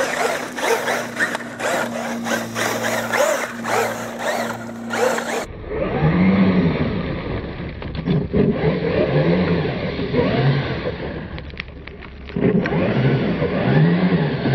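Traxxas UDR RC truck's brushless electric motor and drivetrain whining as the throttle is worked, the pitch rising and falling again and again, with tyres scrabbling on loose dirt. About five seconds in the sound turns duller.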